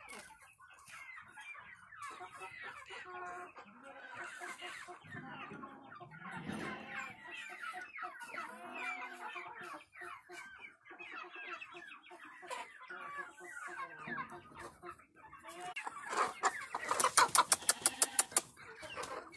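A flock of Light Brahma chickens clucking, many overlapping short calls. Near the end comes a quick run of loud sharp taps, about ten a second, lasting a second or two.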